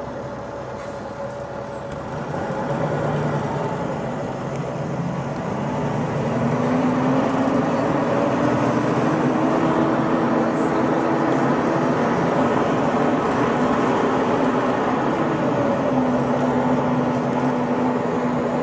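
A vehicle's engine running under a steady rumble. It gets louder after a couple of seconds, and its drone rises slowly in pitch for several seconds before dropping back near the end.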